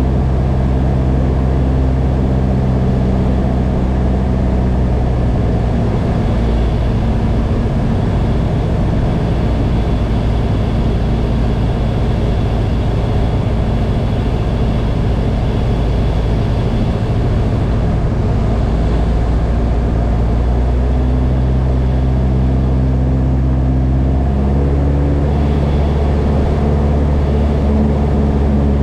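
Single-engine light aircraft's piston engine and propeller running steadily, heard from inside the cockpit, with the engine note stepping a few times as power is changed on the landing approach.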